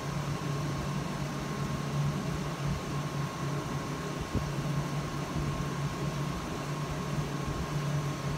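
A steady low machine hum with a faint, steady high tone and hiss above it, and one light click about four seconds in.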